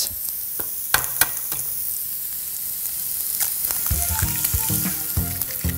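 Eggs and sausage patties frying on an electric griddle: a steady sizzling hiss. A few sharp clicks about a second in as an egg is cracked.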